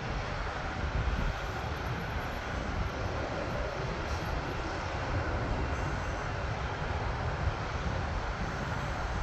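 Business jet climbing away just after takeoff, its jet engines giving a steady, even rumble.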